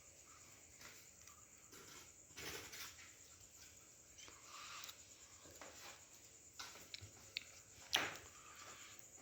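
Faint scattered rustling and light knocking of objects being handled, with one sharp click about eight seconds in.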